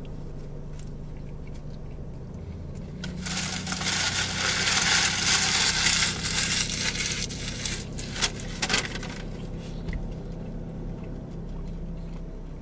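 Paper sandwich wrapper rustling and crinkling as it is handled, loudest from about two to seven seconds in, with two sharp clicks a little later, over a steady low hum.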